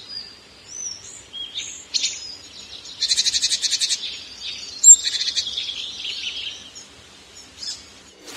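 Songbirds chirping and whistling in short, high, gliding notes, with a fast trill about three seconds in and one loud sharp chirp near the middle.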